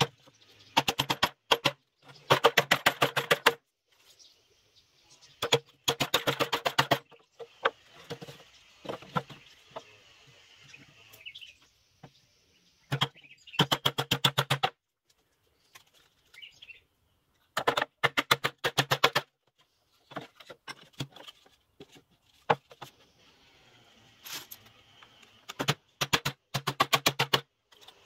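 Hammer driving nails into wooden strips: quick runs of many sharp blows, each run lasting a second or so, repeated about seven times with short pauses between. Each blow rings briefly.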